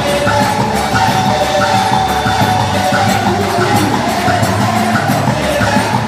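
Festa junina quadrilha dance music playing loudly, with a steady, regular percussive beat under held melody notes.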